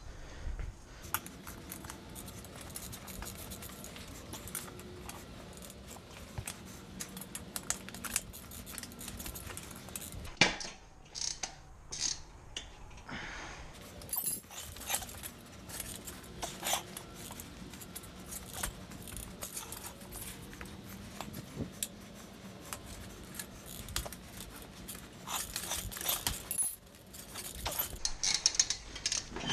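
Metal tire-changing tools clinking, clanking and scraping as they are handled and set down around a dirt bike wheel on a concrete floor. Irregular knocks come throughout and grow busier near the end, over a faint steady low hum.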